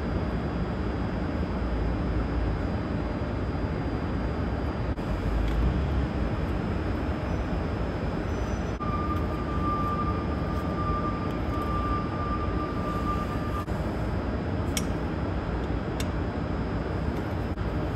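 Steady background rumble throughout, with a thin steady tone for about five seconds in the middle. Near the end come two sharp clicks as a hydrant wrench is set onto a ground hydrant's valve stem.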